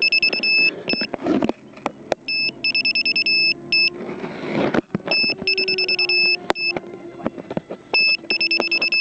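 Electronic alarm beeping in a repeating pattern about every two and a half seconds: a long high two-pitch tone, then a quick run of rapid pulses, then a short tone. It sounds over rustling and handling noise, with a louder noisy swell near the middle.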